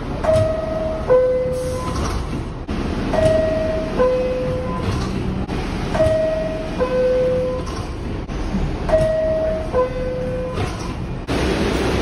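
New York City Subway R62A car's door-closing chime: a two-note falling chime, high note then lower note, sounded four times about three seconds apart, over steady train and station rumble.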